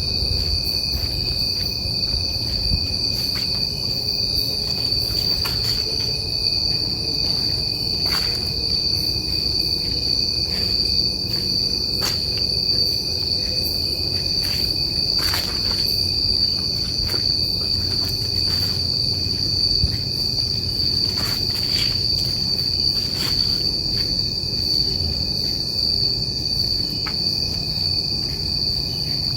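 Night insects such as crickets calling in a continuous high-pitched chorus that does not let up, with a low rumble and scattered faint clicks underneath.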